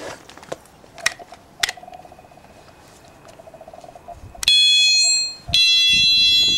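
Passive-infrared motion-sensor alarm going off: a loud, shrill electronic tone sounds for under a second, breaks off, then sounds again for about a second, triggered by detected movement. Two sharp clicks come a few seconds before it.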